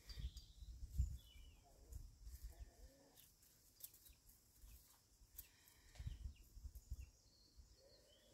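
Faint, scattered bird calls in a quiet garden. A few low rumbling bumps come about a second in and again around six to seven seconds.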